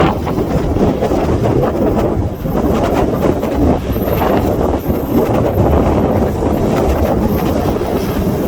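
Strong wind buffeting the microphone: a loud, uneven low rumble that rises and falls.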